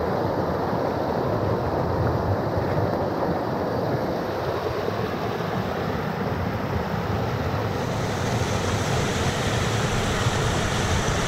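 Water rushing over a rocky cascade in a small river, heard close up: a steady, loud rush that turns brighter and hissier about eight seconds in.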